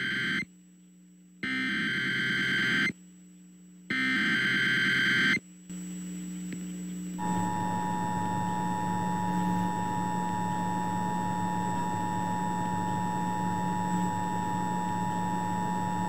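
Emergency Alert System SAME header: the end of one data burst and two more full ones, each about a second and a half of harsh, buzzy digital tones with a short gap between. About seven seconds in, the EAS two-tone attention signal starts, a steady two-pitched tone over a hum and static hiss. Together they announce an alert, here a tornado watch.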